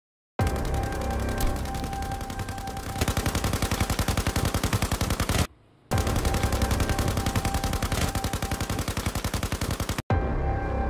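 Sustained automatic rifle fire: long bursts of rapid, evenly spaced shots, broken by a short pause about halfway through and a momentary gap near the end.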